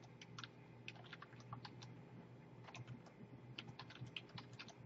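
Faint typing on a computer keyboard: quick, irregular keystrokes.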